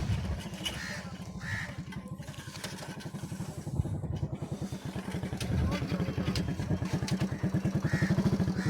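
A small engine running steadily with a low, even beat of about ten thumps a second, growing louder toward the end.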